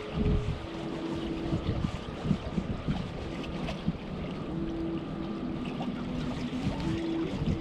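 Wind gusting against the microphone, an uneven rumbling rush, with a steady low hum that comes and goes several times.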